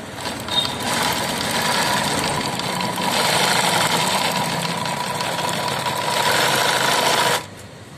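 Industrial sewing machine with a tape-binder attachment running steadily while stitching black binding tape around the edge of a shoe-upper piece. It starts about a second in and stops abruptly near the end.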